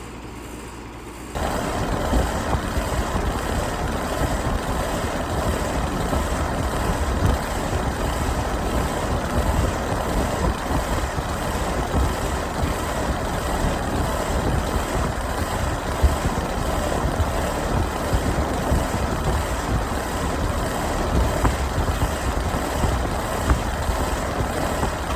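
Rheem outdoor HVAC unit running: a loud, steady rushing noise of the condenser fan and compressor with a strong low rumble, starting suddenly about a second in.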